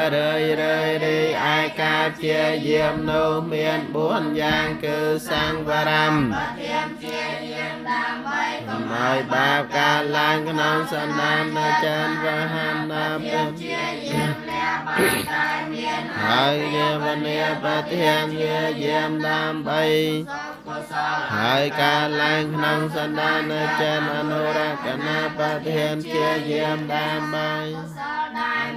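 Buddhist chanting: a group of voices reciting in unison on steady, held pitches, with a brief pause about two-thirds of the way through.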